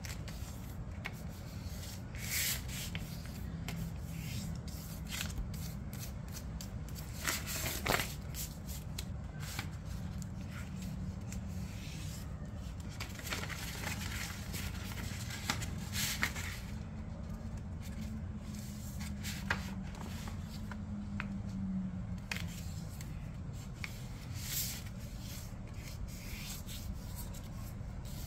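A square sheet of paper being folded and creased by hand: irregular crackling rustles and rubbing as the paper is squash-folded and pressed flat, over a steady low hum.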